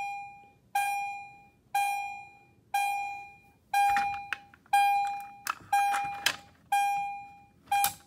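Battery-powered fire alarm horn sounding a pulsing tone about once a second, each pulse starting sharply and fading out. It is going off because the pull station wired to it has been pulled, showing the 9-volt circuit works. A few sharp clicks and knocks from the second half on come from hands handling the pull station.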